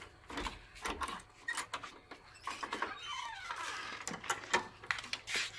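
Irregular knocks and clatter of a weathered wooden plank door being handled, with footsteps as people move through it.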